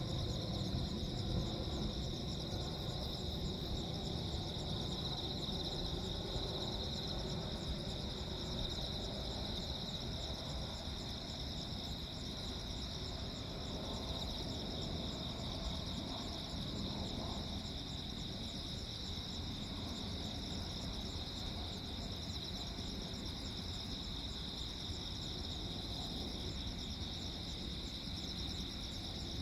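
Crickets chirping in a steady, high-pitched chorus, with a continuous low background rumble beneath.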